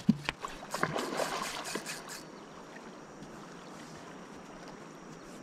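Steady rush of river water, with a quick flurry of sharp clicks and knocks in the first two seconds.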